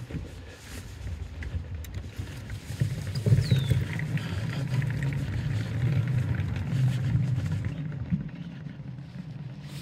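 Low rumble of an electric unicycle's tyre rolling over wooden boardwalk planks, louder from about three seconds in until about eight seconds in. A brief high chirp sounds once near the start of the louder stretch.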